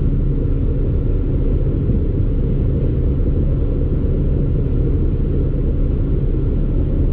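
Steady low rumble of an Iveco Eurocargo truck's diesel engine running, with a few steady low tones in the rumble.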